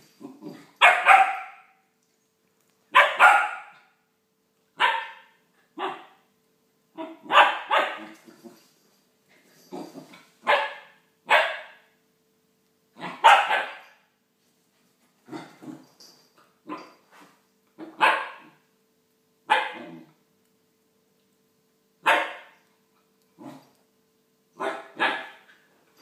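A West Highland White Terrier barking in play: about twenty loud single barks, one to two seconds apart with some in quick pairs.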